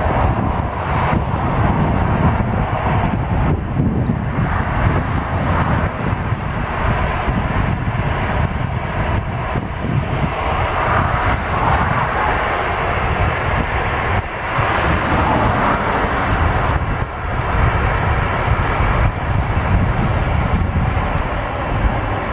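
Airbus A330-200's twin jet engines at takeoff thrust: a loud, steady roar during the takeoff roll.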